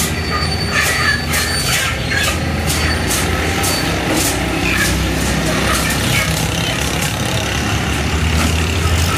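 A steady low motor hum runs throughout. Over it, quick knocks and rustling flaps come about three a second for the first few seconds, then thin out. These fit freshly slaughtered chickens thrashing inside steel bins.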